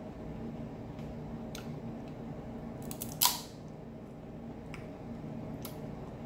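Crab leg shell cracking once, sharp and loud, about three seconds in, with a few faint clicks of shell being handled and picked at around it.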